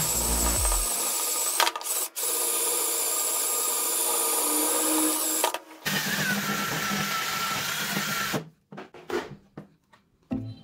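Cordless drill spinning a polishing wheel on a plastic headlight lens to buff out scratches, running steadily with a whine. It dips twice briefly about two seconds in, and its whine changes pitch about six seconds in. It stops about two seconds later, leaving a few light clicks and knocks as the headlight is handled.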